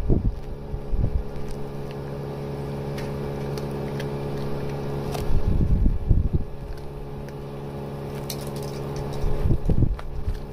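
A cat eating wet food and kibble from a plastic plate, with faint scattered chewing clicks, over a steady low mechanical hum. Low rumbles swell about half a second in, again around the middle, and near the end.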